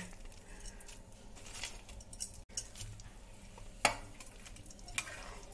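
A steel ladle in a steel pan of kadhi, giving a few sharp single clinks against the pan, the clearest about two-thirds of the way in and again near the end.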